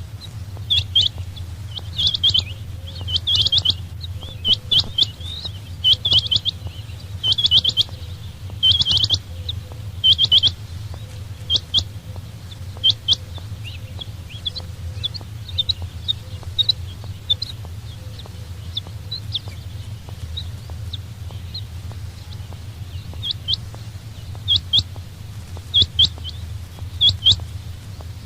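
Quail (chinga batair) calling: short, sharp chirping notes in quick groups of two to four, repeated over and over, thinning to single notes midway and bunching again near the end, over a steady low hum.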